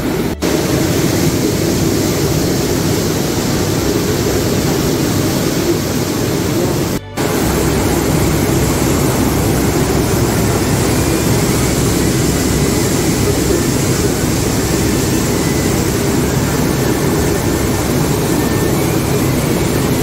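Steady rushing noise on a moving cruise boat: the engine and the churning wake behind the stern, with wind buffeting the microphone. The sound cuts out for a moment about half a second in and again around seven seconds in.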